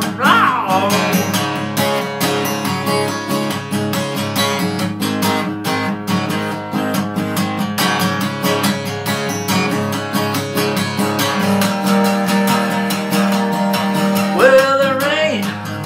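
Steel-string acoustic guitar strummed in a steady rhythm through an instrumental break between sung verses.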